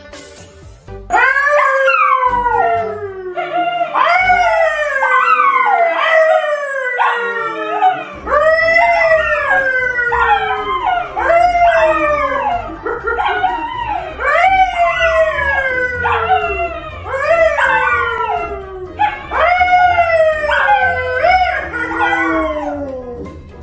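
Two dogs, a yellow Labrador and a brown poodle, howling together with a man howling along: a run of loud howls about a second each, falling in pitch, one after another with voices overlapping.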